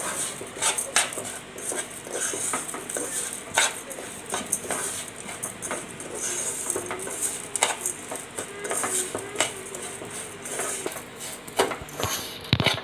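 Slotted steel spatula scraping and knocking against a nonstick saucepan, stirring sugar with a little ghee as it clumps and begins to melt. The clinks come irregularly throughout, with one sharper knock near the end.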